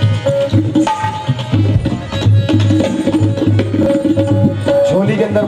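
Qawwali accompaniment: hand drums beating a steady rhythm under a harmonium holding notes and chords, with no singing. A man's voice comes in at the very end.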